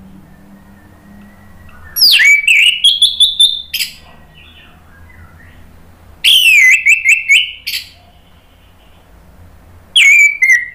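Orange-headed thrush singing: three loud phrases, about two, six and ten seconds in, each opening with a sharp falling whistle followed by a quick run of high notes.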